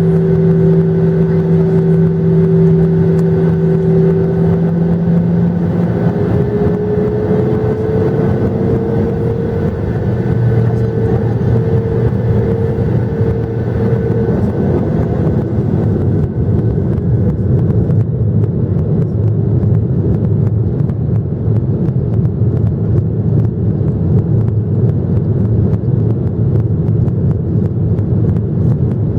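Boeing 737-800 jet engines running, a steady whine whose pitch rises about six to nine seconds in, with a dense low rumble growing beneath it.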